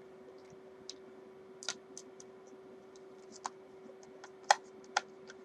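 Scattered small clicks and taps of a screwdriver and screws being worked into a Telecaster-style guitar's pickguard, the two loudest about half a second apart near the end. A steady low hum runs underneath.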